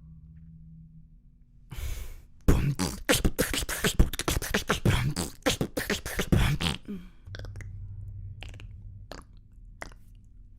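Human beatboxing: a dense, fast run of percussive mouth sounds for about four and a half seconds, then a low held hum with scattered clicks.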